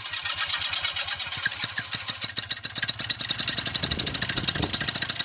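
Paramotor engine running steadily just after being started, with its propeller turning; a fast, even stream of firing pulses.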